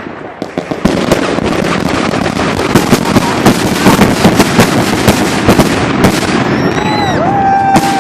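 Fireworks and firecrackers going off in a dense, continuous crackle of sharp bangs, with a few louder reports in the middle. Near the end a long held tone with a slight bend in pitch rises over the crackle.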